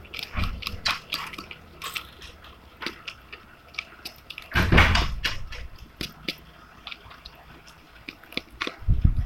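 Clear glue, water and liquid soap mixture being stirred in a bowl: a run of small sticky, wet clicks and squelches, with a louder thump about halfway through and another near the end.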